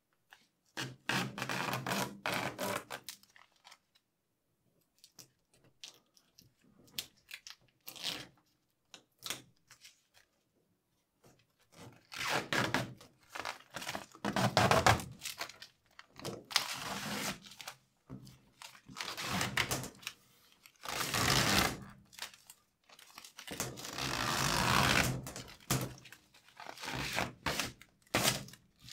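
Protective plastic film being peeled off acrylic (Plexiglas) panels: ripping, crinkling pulls in repeated bursts, with a quieter stretch of a few faint ticks in the middle.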